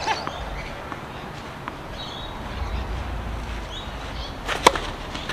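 Tennis racket striking the ball on a serve: one sharp pop with a brief ring about four and a half seconds in, over a low background rumble.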